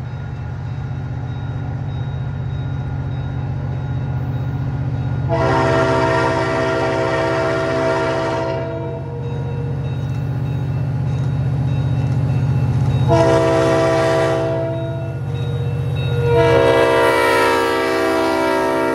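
Diesel freight locomotive HESR 3038 approaching with its engine rumbling louder, sounding its RS5T chime air horn for the crossing: a long blast, a shorter one, then a long blast that drops in pitch as the locomotive passes.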